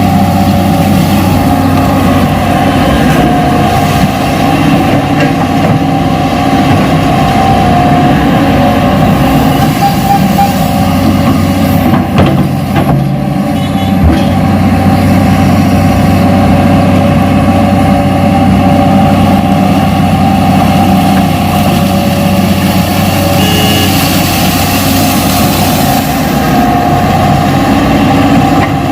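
Radio-controlled Hitachi model excavator running, a loud steady mechanical drone with a couple of brief knocks near the middle.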